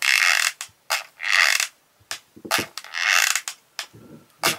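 Hot glue gun being squeezed over and over, its trigger and feed mechanism creaking and ratcheting in about four strokes as the glue is pushed out.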